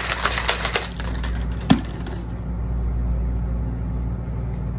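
Plastic shaker bottle of pre-workout and creatine being shaken hard, rattling in quick clicks for the first second or so. About two seconds in comes a single sharp click.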